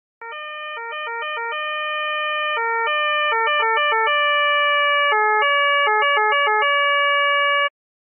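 Electronic two-tone police siren, the Austrian type, stepping between a low and a high note in quick alternations broken by long held high notes. It swells slightly and cuts off sharply near the end.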